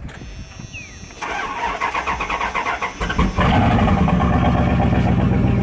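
A second-generation Dodge Ram's 5.9-litre V8 cranked by the starter for about two seconds, then catching about three seconds in and running steadily: a start after the truck has sat for six months.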